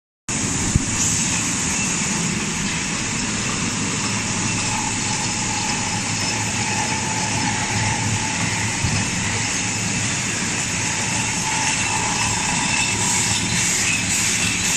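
Automatic packing machine for plastic cutlery sets running steadily: a continuous mechanical din with a faint whine that comes and goes, and a couple of small clicks.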